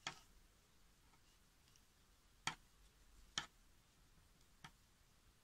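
Near silence broken by four short, sharp clicks at uneven intervals, the two loudest about a second apart in the middle: a metal crochet hook being worked through yarn.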